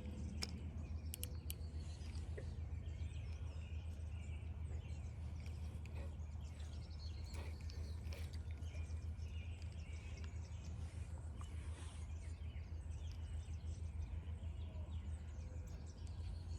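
Outdoor ambience: a steady low rumble with faint bird chirps scattered through it, and a few sharp clicks in the first couple of seconds.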